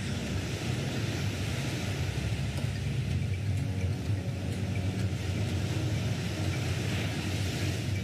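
Sea surf breaking and surging: a steady rush of water, with a low rumble beneath a broad hiss.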